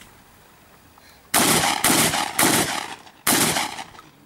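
Four shotgun shots fired in quick succession, each a loud blast that trails off briefly; the first three come about half a second apart, and the fourth follows a slightly longer pause.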